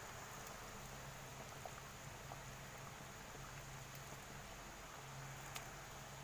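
Faint bubbling of beef broth at a boil in a stainless steel stockpot, with small scattered pops over a steady low hum. A sharper light click comes near the end.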